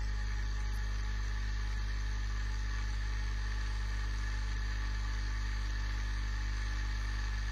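RomeroUK Muller-type motor-generator running steadily with an even multi-toned hum, its coils loaded through a diode and resistor that feed current back to the 24-volt battery.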